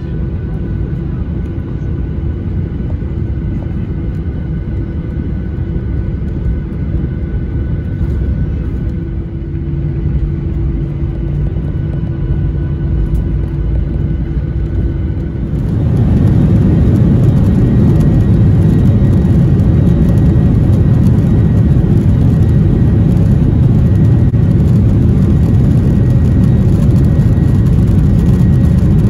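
Aircraft cabin noise in a Boeing 737-800: a steady low rumble with a faint hum. About halfway through it turns abruptly louder and fuller, then holds steady.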